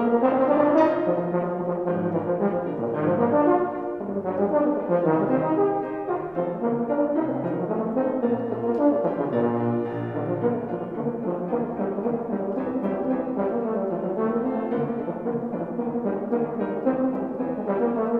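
A euphonium playing a fast solo line of quick notes running up and down, over piano accompaniment.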